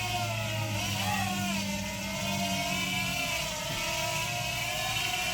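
JJRC JJ850 quadcopter's motors and propellers whining in flight, the pitch rising and falling as the throttle changes.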